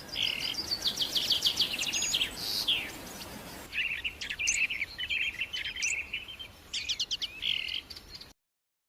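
Goldfinch singing: a fast run of high twittering chirps and short buzzy trills, cutting off abruptly about eight seconds in.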